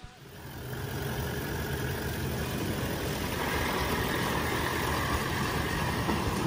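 Toyota LandCruiser 79 Series ute's engine running as the truck drives past through a wet, muddy track, with tyre and mud noise. It grows louder over the first second and is fullest about halfway through as it passes close by.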